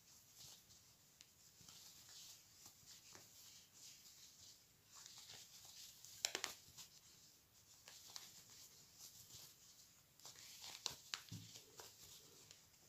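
Faint rustling and light scratchy clicks of velvet yarn being worked with a metal crochet hook, with a sharper click about six seconds in.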